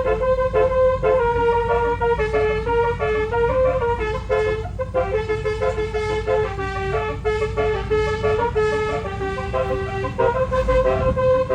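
Twelve-trumpet telolet basuri air horn playing a tune: a quick run of short horn notes stepping up and down in pitch, over a steady low rumble.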